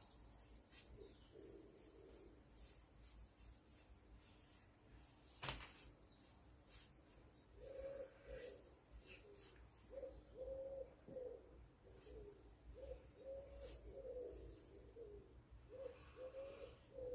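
Faint birdsong: a dove cooing repeatedly in short phrases from about halfway through, with small birds' high chirps scattered throughout. A single sharp click sounds about five seconds in.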